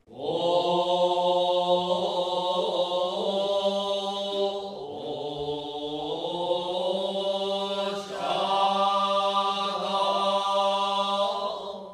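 Shomyo, Japanese Buddhist chant, sung in unison by a group of monks: a low, long-held tone whose pitch bends slowly. It breaks briefly for breath about five seconds in and again near eight seconds.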